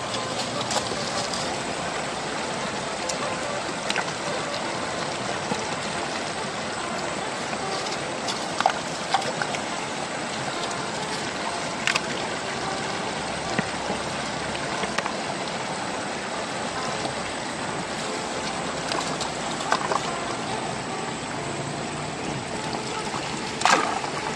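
Shallow river water rushing steadily over stones, with scattered short splashes and knocks from hands working sediment in water, and a louder splash near the end.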